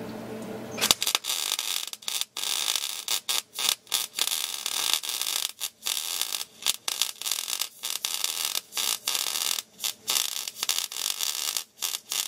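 Electric arc welding on a steel bar: the arc crackles and sizzles in a string of short runs. It starts about a second in and cuts out briefly many times between runs.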